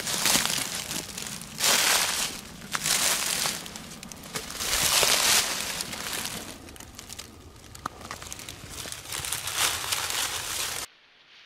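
Footsteps crunching through dry fallen leaves in a run of loud bursts, each about a second or so apart, growing quieter in the second half. The sound cuts off suddenly shortly before the end.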